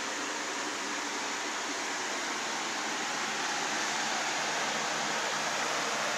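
Steady rushing noise with a faint low hum under it, getting slightly louder about halfway through.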